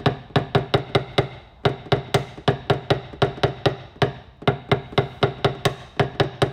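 Paintless dent repair tap-down tool rapped against a car body panel, knocking down the high spots left by a glue pull. The taps come quickly, about five a second, with brief pauses, and each one rings briefly with a low tone.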